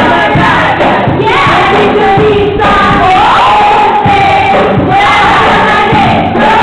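Group of girls singing loudly together, half-shouting, to a strummed acoustic guitar. The voices hold long notes and slide in pitch over a continuous crowd of voices.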